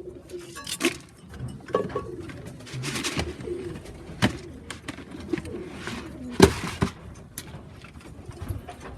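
Racing pigeons cooing in their loft, with several sharp knocks and clatters, the loudest about six and a half seconds in.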